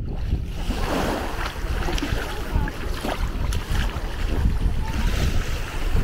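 Baltic Sea waves washing onto a sandy beach, with wind rumbling on the microphone.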